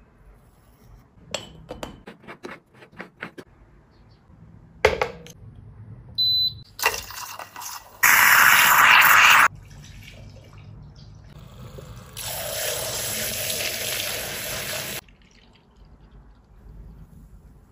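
Making coffee in an electric moka pot: light clicks and taps as ground coffee is levelled in the metal filter basket, then a single knock and a short beep. About halfway through, a loud hiss comes from the pot as it brews, and later there is a second, steadier stretch of hiss.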